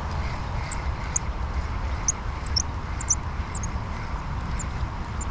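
A steady low rumble, with short high chirps of small birds scattered through it.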